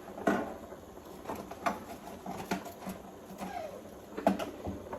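Irregular clicks and knocks of a utensil against a cooking pot while stock cubes are being added to a pot of pondu, the sharpest knock about four seconds in.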